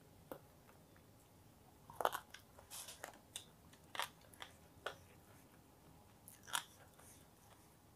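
A person chewing a mouthful of crunchy food, with a scattering of faint, crisp crunches from about two seconds in.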